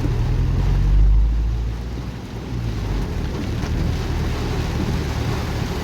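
Heavy rain drumming steadily on a Hyundai HR light truck's cab, heard from inside, over a low engine and road rumble.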